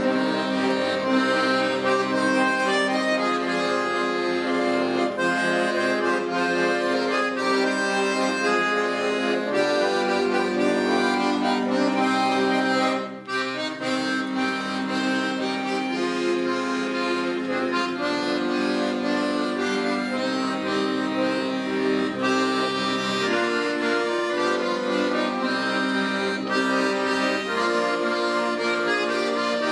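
An accordion ensemble playing a tune in sustained, chord-rich notes, with a brief break about thirteen seconds in before the playing goes on.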